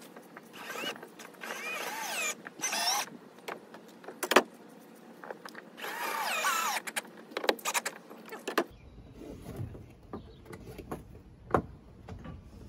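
Cordless drill-driver running in three short bursts, its motor whine rising and falling in pitch with the trigger, with a sharp click about four seconds in. Soft handling clicks follow after the drilling stops.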